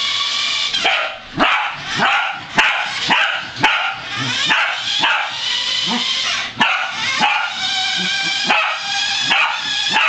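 Corgi barking sharply, over and over, about once a second, over a continuous high-pitched whine from a toy remote-control car.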